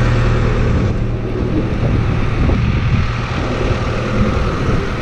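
Engine idling steadily, with irregular rumbling and handling noise on the microphone after the first second.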